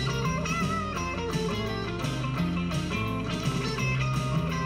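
Instrumental theme music led by guitar over a steady bass line.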